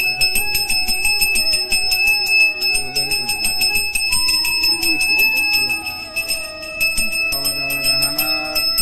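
Small brass puja hand bell rung rapidly and without pause, its clapper striking many times a second for a bright, steady ring, while a voice chants the prayers underneath.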